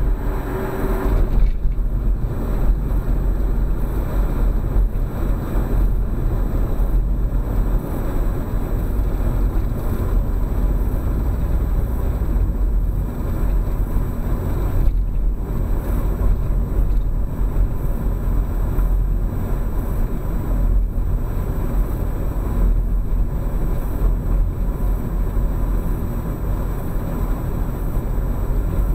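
Car cabin road noise at driving speed: a steady low rumble of tyres and engine. A steady hum is there at first and stops about a second and a half in.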